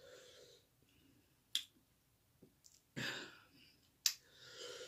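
A person breathing out hard through the mouth three times, easing a mouth burning from very hot wing sauce, with two sharp mouth clicks in between.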